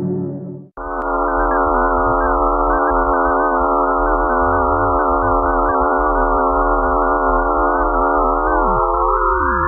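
Space sonification presented as the sound of Phobos, the moon of Mars: a dense chord of steady, slightly wavering electronic tones. It starts abruptly about a second in, just after a deeper drone cuts off. Near the end some of the tones slide down while others slide up.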